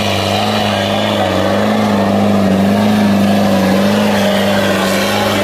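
HMT 6522 tractor's diesel engine running steadily under heavy load as it drags a harrow through soil, its pitch wavering slightly.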